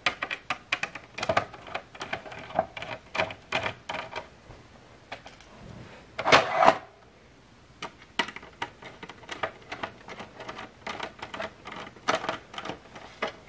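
A hand screwdriver backing small screws out of a plastic lamp housing, with quick irregular runs of clicks. About six seconds in, the plastic piece is handled with a louder double knock.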